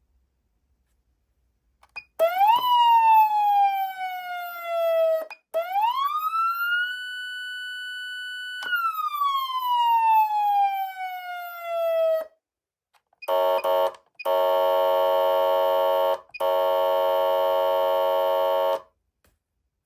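Code 3 electronic siren amplifier sounding. First a short rise-and-fall, then a wail that climbs, holds high for a moment and winds back down. After a short pause come three blasts of a steady, buzzy horn tone, the first short and the next two about two seconds each.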